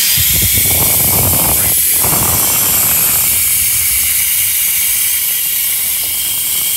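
High-pressure air hissing steadily out of a leaking fitting on a PCP air rifle's freshly filled carbon fiber air bottle: the fitting is not tightened enough. Handling noise from the rifle being turned over runs under the hiss for the first few seconds.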